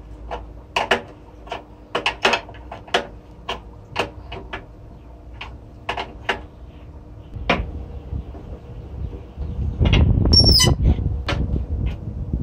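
A steel open-end wrench clinks against a brass compressor fitting as it is worked round and re-seated, in sharp separate clicks, two or three a second. Near the end a louder low rumble sets in, with a brief high squeak.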